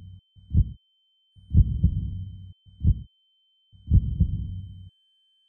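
Heartbeat sound effect: slow, deep thumps about every second, some trailing into a low rumble, over a steady high-pitched ringing tone.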